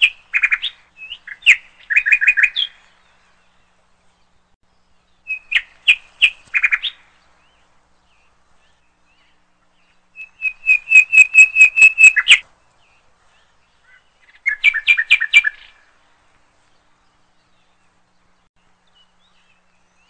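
A small bird chirping in four short bursts of quick, repeated trilled notes, with pauses of a few seconds between them.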